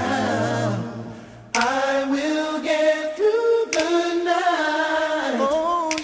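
Background song with sung vocals. One held phrase fades out in the first second, and a new sung phrase comes in about a second and a half in and carries on.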